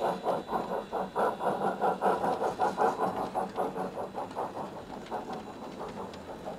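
Model steam locomotive sound of a G-scale C-19 consolidation chuffing in a fast, even beat of about five chuffs a second, fading steadily.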